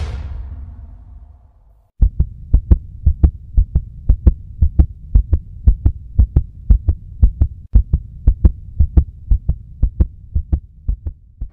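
Heartbeat sound effect: low thumps in close pairs, repeating steadily over a low hum, beginning about two seconds in as the tail of a whoosh fades away.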